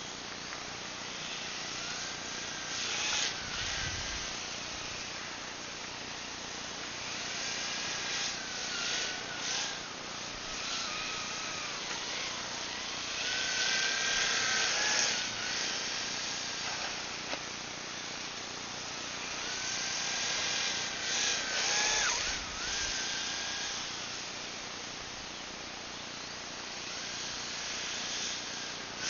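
Electric motor of a Blizzard DF 300 EP RC model on a three-cell lipo, whining at a high pitch that rises and falls as the throttle changes, with passing bursts of hiss.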